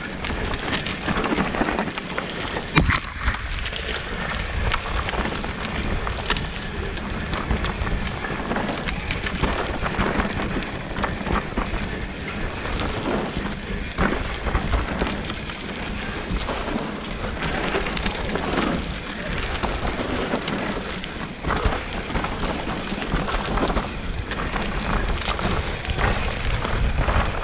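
Mountain bike ridden down a steep, muddy, wet trail, heard from the rider's camera: a continuous rumble of tyres over mud and wind on the microphone, with frequent sharp knocks and rattles from the bike over rough ground.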